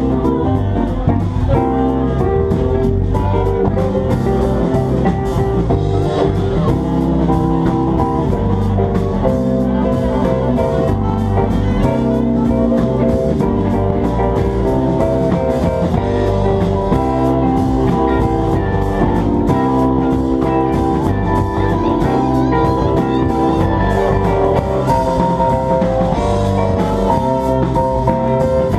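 Live band playing an instrumental jazz-blues tune on drum kit, electric guitar and keyboard, loud and steady throughout.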